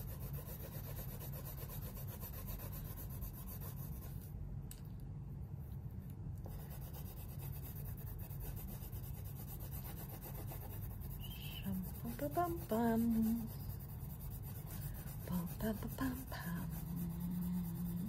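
Green coloured pencil shading back and forth on drawing paper, a steady scratchy rubbing. A voice hums briefly about two-thirds through and again near the end.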